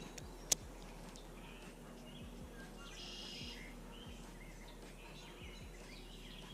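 Songbirds singing and chirping over a steady outdoor hiss, with one clear burst of song about three seconds in. A single sharp click about half a second in is the loudest sound.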